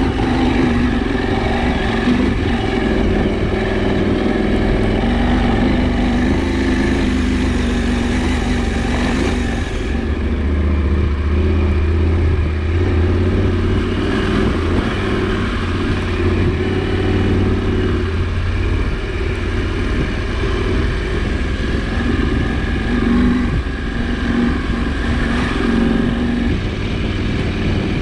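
KTM 790 Adventure's parallel-twin engine running as the motorcycle is ridden, its note shifting a little several times with the throttle.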